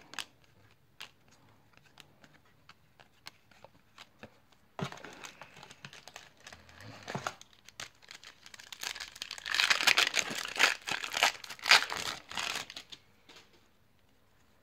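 Foil wrapper of a 1993 Upper Deck baseball card pack crinkling and tearing as it is ripped open by hand, loudest in a run of rustles over the last third. Before that, faint clicks of cards being handled.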